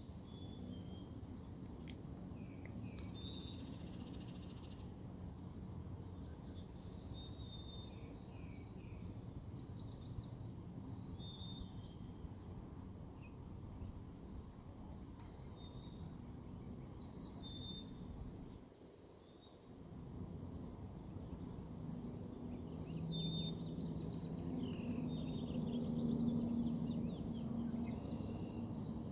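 A songbird singing a short, high phrase of quick falling notes, repeated every few seconds over a steady low background rumble.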